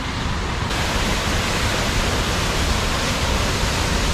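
Waterfall's steady rush of falling water, cutting in abruptly about a second in, over a steady low rumble.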